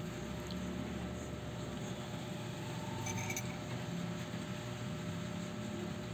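Steady low rumbling background noise, with a single brief light clink about three seconds in.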